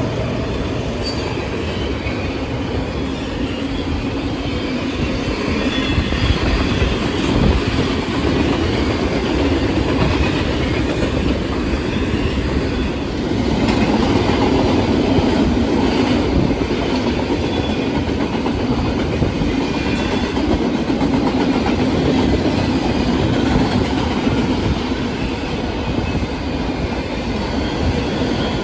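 Freight train cars rolling past on the rails: a steady, loud rumble of steel wheels on track that goes on without a break.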